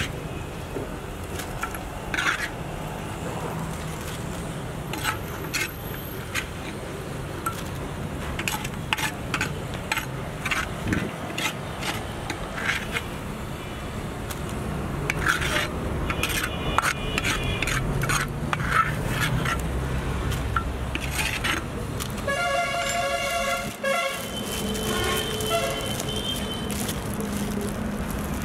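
Repeated clinks and knocks of cooking pots and utensils over a steady low background hum, with a horn-like tone sounding twice near the end.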